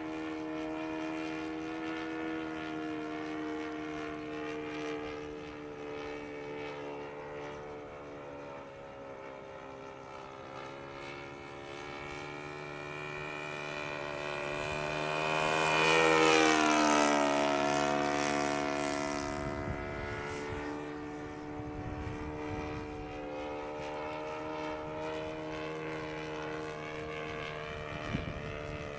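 A Saito 80 single-cylinder four-stroke glow engine with its propeller, running steadily in a radio-controlled model warbird in flight. The drone builds to its loudest about halfway through as the plane flies past, its pitch dropping as it goes by, then fades back to a steady distant note.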